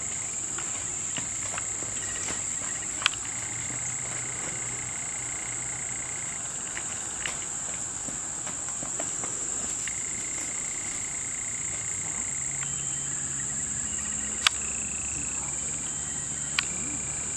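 A steady, high-pitched chorus of insects runs throughout. A few sharp clicks cut through it, the loudest about three seconds in and about three seconds before the end.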